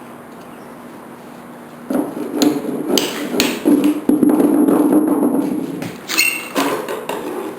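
Hammer blows and knocks during pool table assembly: several sharp strikes start about two seconds in, with a rumble of moving parts in the middle and a ringing metallic strike near the end.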